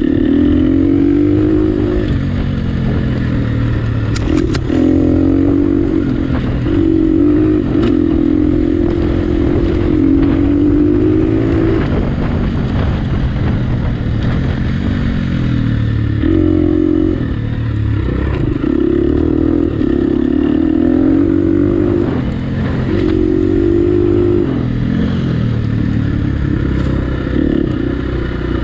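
Dirt bike engine revving up and down as the throttle is opened and closed on a trail ride, with several brief drops off the throttle. A couple of sharp knocks come about four seconds in.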